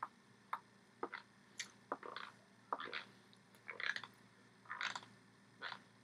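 Faint, irregular soft smacks, clicks and brief rustles, about two a second, from a person signing: hands meeting each other and the chest, with lip and mouth noises.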